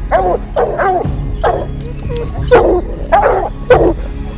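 Hunting hounds baying at a treed mountain lion, short pitched bays about two a second, overlapping: the treed bark that tells the hunters their cat is up the tree.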